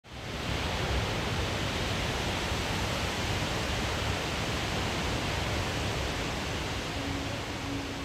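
Steady rushing of a tall waterfall, Kanba Falls with its roughly 110 m drop, coming up at the very start and holding level. A faint steady musical note joins near the end.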